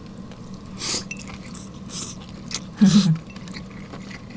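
A person eating a hot mouthful of thinly sliced beef shabu-shabu: wet mouth sounds and chewing with a few short breathy puffs as the hot meat cools in the mouth, and a brief hum about three seconds in.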